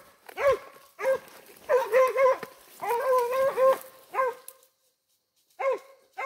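Hunting dog barking repeatedly while on the scent trail of an armadillo, several barks bunched together, then a pause of about a second before more barks near the end.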